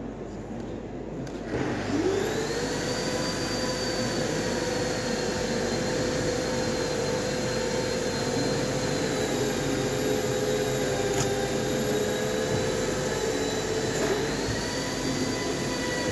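A motor-driven whine with a rushing hiss starts about a second and a half in, rising quickly in pitch as it spins up, then runs steadily; near the end its pitch lifts again.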